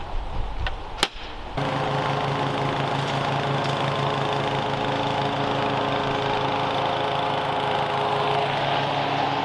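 Toro TimeMaster 30-inch push mower engine running steadily under load as it is pushed through a leaf-covered lawn with the bagger fitted. Its hum cuts in suddenly about a second and a half in, after a low rumble and a single sharp click.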